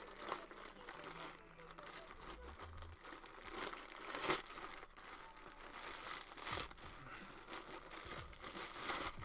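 A parcel being torn open by hand, its packaging crinkling and rustling throughout with a few sharper rips, the loudest about four seconds in.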